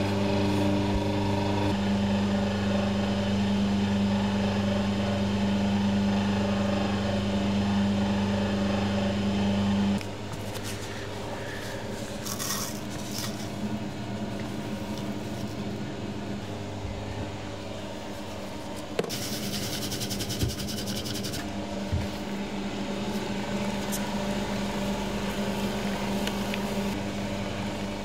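Electric spiral dough mixer running with a steady motor hum, switched off abruptly about ten seconds in. After that, quieter handling sounds with a few short hissy rustles and light knocks.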